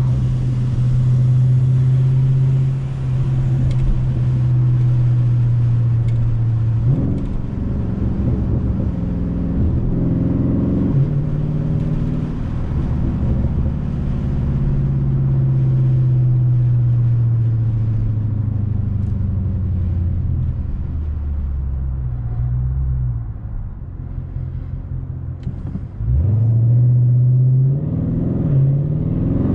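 Engine and exhaust of a 2020 Dodge Charger Scat Pack Widebody's 6.4-litre HEMI V8, tuned and with the mid muffler deleted, heard on the move. It holds a steady drone, its pitch changing through several gear shifts and throttle changes. It goes quieter as the throttle eases off a few seconds before the end, then comes back loud with the pitch climbing under hard acceleration.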